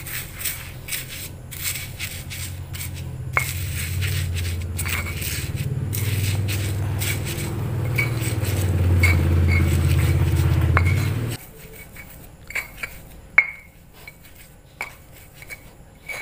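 Stone pestle grinding and scraping turmeric bait paste and crushed wafers in a stone mortar, with light clicks of stone on stone. A low rumble under the grinding stops suddenly about eleven seconds in, and after that only scattered taps and scrapes of the pestle remain.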